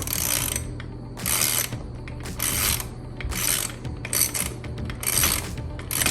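Ratchet wrench with a 13 mm socket clicking through repeated short back-strokes, about one a second, while undoing the bolts on a stock blow-off valve. A steady low hum runs underneath.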